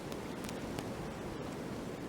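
Steady wind in a winter forest: an even hiss with a few faint ticks in the first second.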